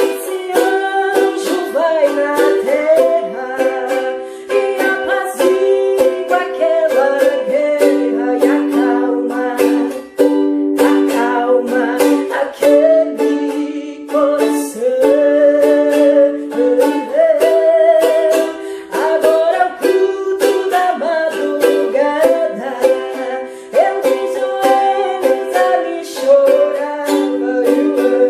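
Ukulele playing a hymn tune, with rapid strummed chords under a moving melody line.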